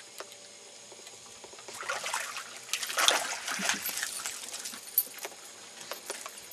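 Water splashing as a walleye is scooped up in a landing net, loudest about three seconds in, then water running off the lifted net with a few sharp knocks.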